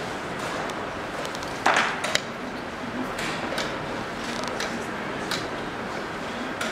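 Steady room noise of a busy hall, with scattered light clicks and knocks; one louder knock comes a little under two seconds in.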